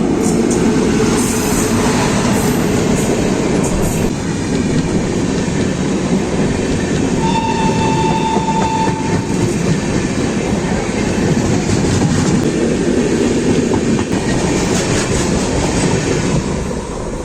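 Indian Railways train passing close by at speed, wheels rumbling and clattering over the rails throughout. A high steady tone sounds for about two seconds midway.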